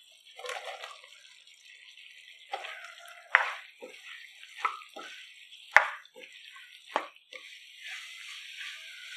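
Crispy fried chicken pieces tipped into a wok of thick sauce, then stirred with a spatula: wet squelching of the sauce-coated pieces, with sharp clacks and scrapes of the spatula against the wok about once a second over a steady hiss.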